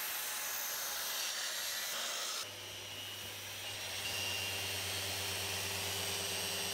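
Power-tool noise with dust extraction: a steady hissing whir for the first couple of seconds, then after a sudden change about two and a half seconds in, an electric random orbital sander running steadily on a curly redwood slab, with a low hum under it.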